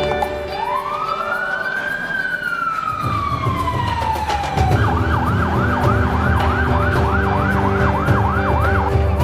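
Fire engine siren: one long wail that rises and then slowly falls, switching about five seconds in to a fast yelp of about two and a half cycles a second.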